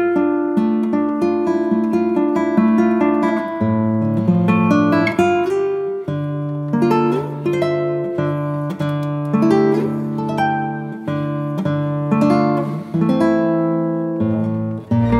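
Background music: an acoustic guitar playing plucked notes and chords, each ringing and then fading, over a slowly changing bass line.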